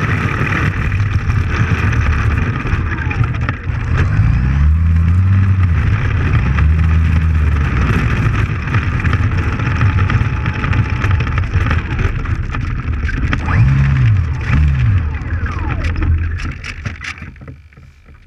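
Electric motor and propeller of an RC trainer plane running on the ground, the pitch rising and falling as the throttle is worked. It winds down and stops near the end.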